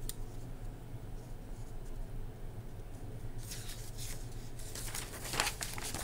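Pages of a paperback picture book rustling and crinkling as it is handled and a page is turned. About halfway in it starts as scattered soft crackles, and sharper crinkles come near the end; before that there is only a low room hum.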